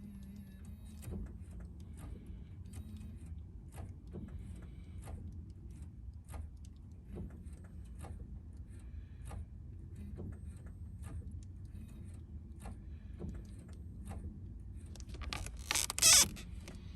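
Scattered, irregular sharp clicks from inside an Infiniti G35 that won't start, over a low steady hum, with one short loud burst of noise near the end. The car does not start, even with a jumper connected and a new starter motor fitted.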